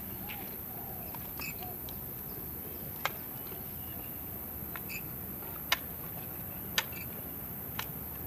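Sharp plastic clicks and small knocks as AA batteries are pried out of a toy RC car's battery compartment and set down, a handful of separate clicks with the loudest ones in the second half.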